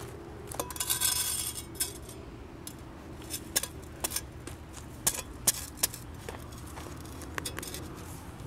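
Small hand shovel digging at gravelly dirt: irregular sharp clinks and scrapes as the blade strikes pebbles, with a longer scrape about a second in.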